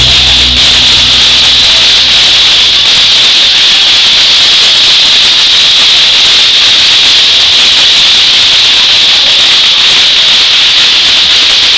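Sustained audience applause, heard as a loud, steady, dense hiss.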